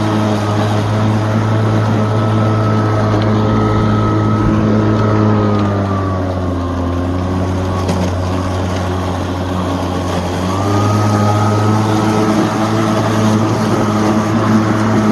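Greenworks 80V brushless cordless lawn mower running while mowing: a steady motor-and-blade hum whose pitch sags for a few seconds midway, then climbs back to its earlier speed.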